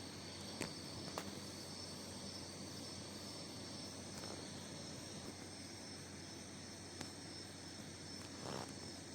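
Faint, steady chirring of crickets and other night insects, with a few soft clicks.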